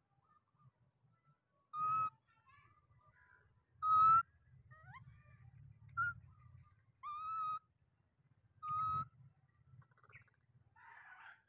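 Baby macaque giving short, whistle-like coo calls, five in all, each well under a second and all on about the same pitch, with a faint low rumble between them.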